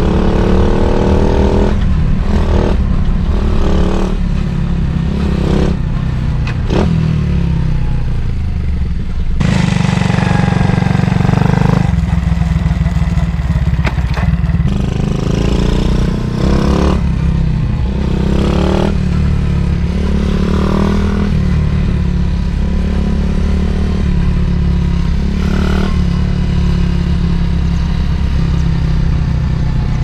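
Honda Monkey's small single-cylinder four-stroke engine through a Takegawa Z-style aftermarket muffler, revving up and easing off repeatedly as the mini-bike rides along and past.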